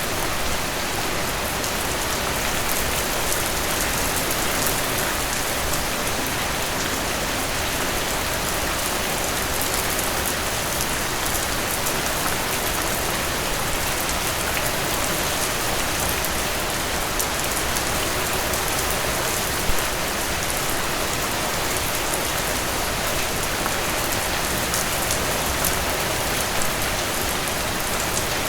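Steady rain falling on a surface, a dense even hiss with fine drop patter and an occasional louder drip.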